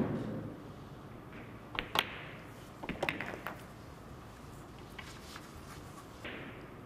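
Sharp clicks of pool balls being struck and knocking together. The loudest comes about two seconds in, followed by a quick cluster of clicks about a second later and a few fainter ones after that.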